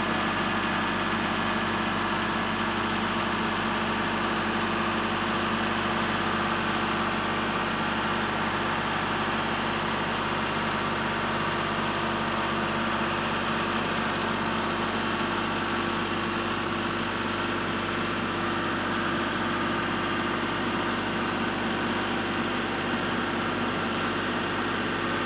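Diesel engine running steadily at a constant speed, its note holding even without revving.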